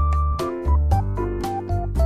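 Background music: a light keyboard or electric-piano tune over a bass line and a steady beat.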